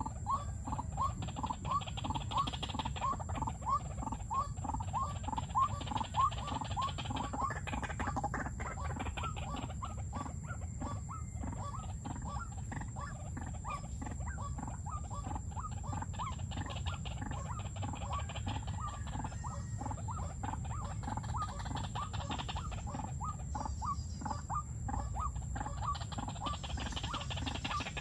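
White-breasted waterhen calling: a long, steady run of short rising notes, about three a second.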